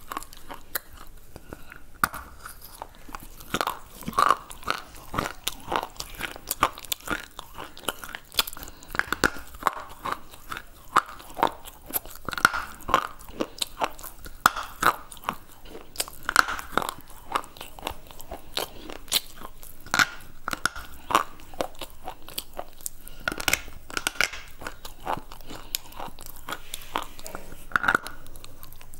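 Close-miked biting and chewing of a white slate bar: a dense, irregular run of sharp crunches as the brittle stone snaps and is ground between the teeth.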